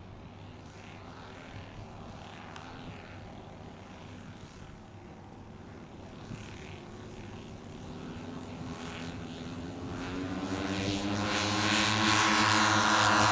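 The four Zenoah 22cc two-stroke petrol engines of a large-scale RC Handley Page HP42 model biplane droning in flight. They are faint at first, then grow steadily louder from about eight seconds in as the model approaches low and close.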